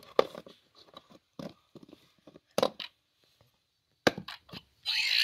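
Plastic LEGO pieces knocking and clattering against a wooden board as they are handled, a handful of separate sharp knocks. A brief burst of sweeping tones near the end is the loudest sound.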